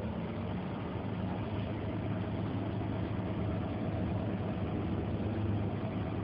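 Semi truck's diesel engine idling, a steady low hum that does not change.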